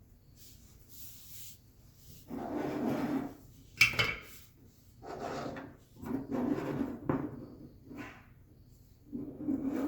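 A string of short rubbing and scraping handling sounds, about six in all, with a sharp knock about four seconds in.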